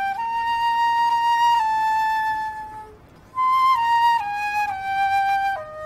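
Solo flute playing a slow melody of held notes, pausing about halfway, then a phrase that steps down in pitch.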